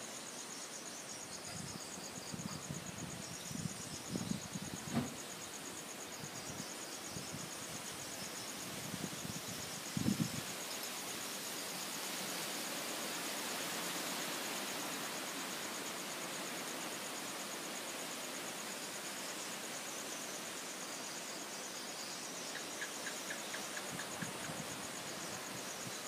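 Strong wind gusting through trees, a rushing noise that swells around the middle, with low thumps of wind on the microphone during the first ten seconds. Insects trill steadily underneath in a high, fast-pulsing chirr.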